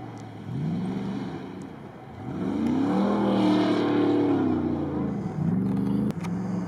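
V8 off-road vehicle's engine revving up and down in several throttle bursts. The longest and highest runs from about two and a half to five seconds in.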